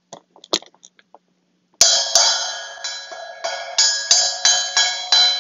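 Sabian SBR 10-inch brass splash cymbal struck repeatedly with a drumstick, about three hits a second, each hit ringing on into the next. A few light taps come before the first hit, just under two seconds in.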